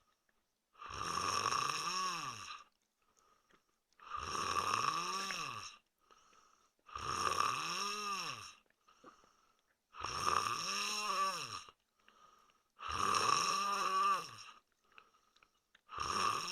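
A man snoring in his sleep: a snore about every three seconds, each lasting one to two seconds and rising then falling in pitch, with quiet pauses between.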